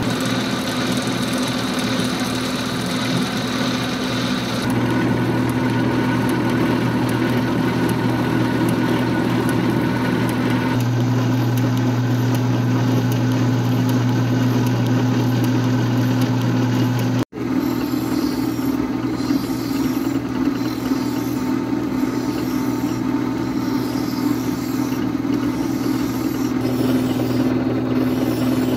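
Old flat-belt-driven metal lathe running under power with a steady hum, while a parting tool on slow power cross-feed cuts a bushing off brass bar stock. The sound cuts out for an instant about two-thirds of the way through.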